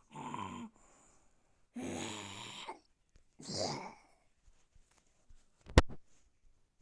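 A person's voice making breathy, wheezing noises in three bursts, with a sharp click near the end.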